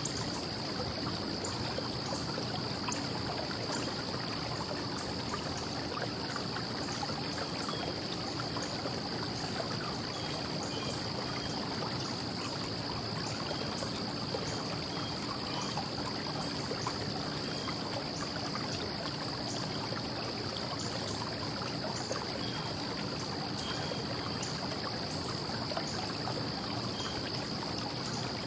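Steady wash of distant traffic noise. Above it are a constant high-pitched tone and faint, repeated small chirps and ticks.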